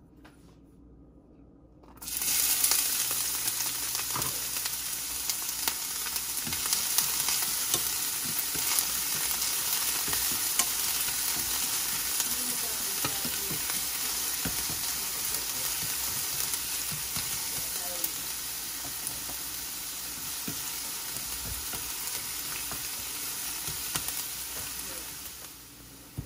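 Chopped garlic sizzling in hot oil in a stainless steel frying pan. The hiss starts suddenly about two seconds in as the garlic goes into the pan. It runs on under the light scrapes and taps of a wooden spatula stirring, then drops off shortly before the end.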